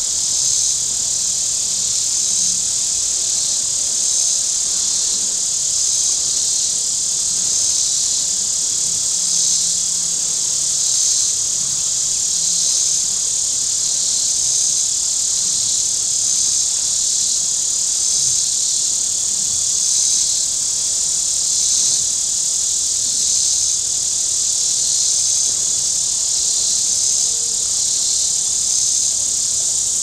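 A chorus of cicadas buzzing loud and steady, swelling and fading about once a second.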